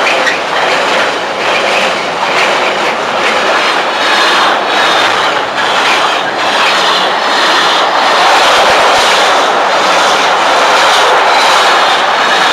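An intermodal freight train's wagons rolling past close by, with a steady loud rush and the clatter of wheels over rail joints.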